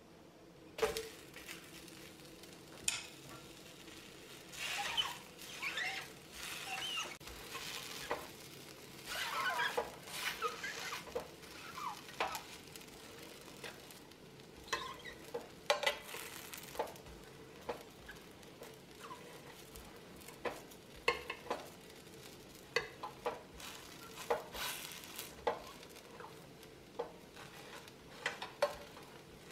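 A stainless steel turner scraping and tapping against the bottom and sides of an electric skillet in irregular strokes, loosening a frying pancake, with faint sizzling of the frying underneath.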